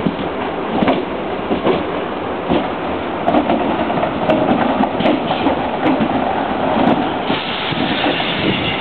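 Class 321 electric multiple unit rolling past on its arrival, its wheels knocking irregularly over rail joints and pointwork. A high-pitched whine comes in near the end.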